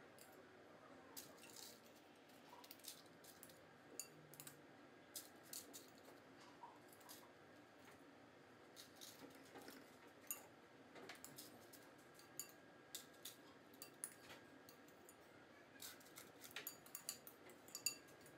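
Faint, scattered clicks and scrapes of a spoon against a glass mixing bowl as graham cracker crumb crust is scooped out and dropped into paper cupcake liners. The clicks come more often near the end.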